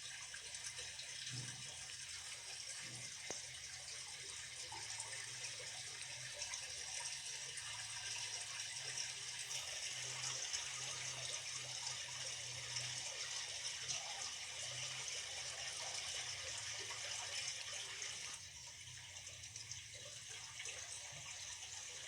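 Steady rushing noise like running water, a little quieter from about eighteen seconds in.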